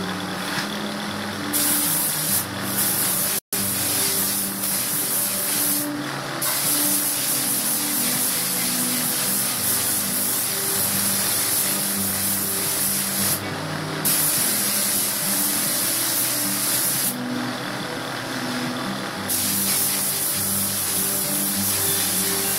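Compressed-air paint spray gun hissing as it sprays paint onto a car body. The hiss breaks off briefly a few times. Background music with a bass line runs underneath.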